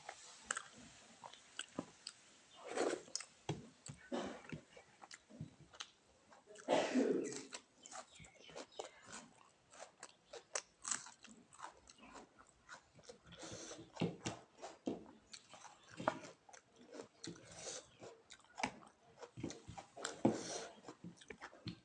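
Close-up eating sounds: chewing and biting a meal of rice, fish and fried vegetables, with many small wet mouth clicks and crunches. Louder, fuller bites come about 3 and 7 seconds in.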